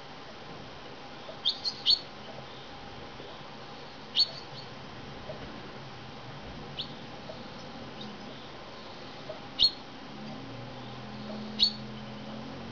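Male chaffinch calling with short, sharp chirps: a quick run of three about a second and a half in, then single chirps every two to three seconds.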